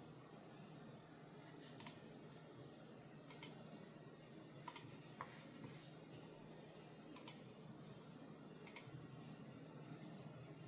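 Logitech G Pro X Superlight 2C wireless mouse buttons clicking: about five separate clicks roughly a second and a half apart, each a quick double tick of press and release, over faint hiss.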